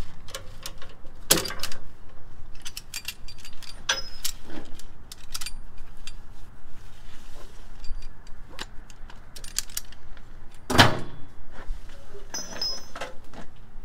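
Metal hookup hardware on a tow truck's wheel lift and frame forks being handled: repeated sharp metallic clinks and rattles, with one heavier clank about eleven seconds in.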